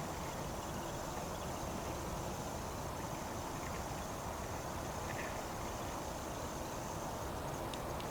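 Steady background noise with a thin, high, unbroken tone above it, and a couple of faint ticks.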